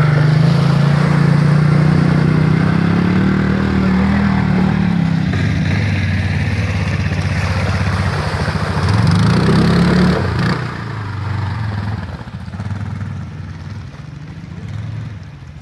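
Quad ATV engines running as the machines ride through a shallow stream, with water splashing from the wheels. The engine revs up and swells about nine to ten seconds in, then fades as the ATVs drive away.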